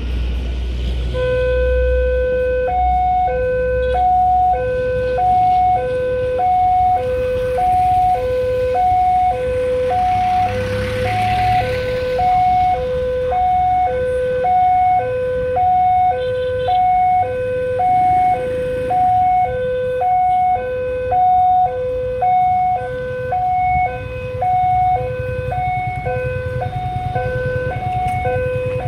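Railway level-crossing warning siren sounding a fast two-tone alarm, a low and a high tone alternating in half-second steps, warning road traffic that a train is approaching and the barrier is closing. A low engine rumble sits under it near the end.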